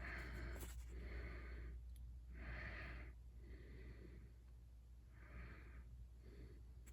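A person breathing audibly close to the microphone: about six soft breaths in a row.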